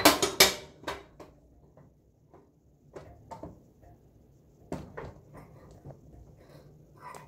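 Handling noise from things being moved and set down on a kitchen counter: a quick run of sharp knocks and clatter in the first second, then scattered lighter taps and bumps.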